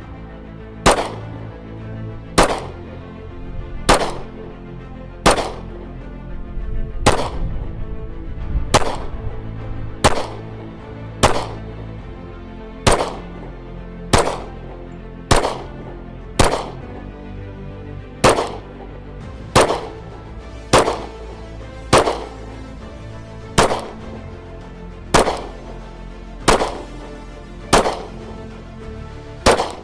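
Gunshots, about twenty sharp bangs each with a short fading tail, spaced roughly every second and a half, over steady background music.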